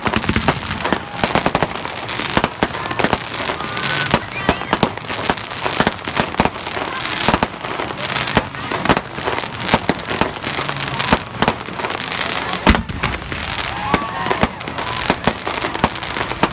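Fireworks display: a dense, continuous run of crackling pops and bangs from glittering crackle bursts. One heavier boom comes about three-quarters of the way through.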